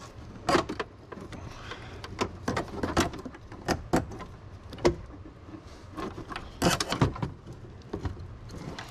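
Plastic interior trim pieces and clips of a car's dash being pried off and handled: irregular clicks, snaps and knocks, with a quick cluster of louder ones about two-thirds of the way through.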